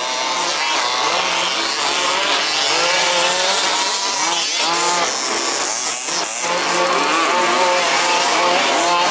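Several 1/5-scale two-stroke petrol RC buggies racing together, their engines overlapping as each revs up and drops off in turn. The high, buzzing whine rises and falls constantly.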